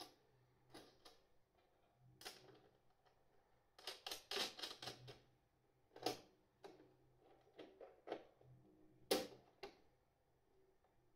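Faint, scattered clicks and light rattles of small parts and wiring being handled while a BMS board is fitted to a battery case's front panel. A quick cluster of clicks comes about four seconds in, and sharper single clicks come near six and nine seconds.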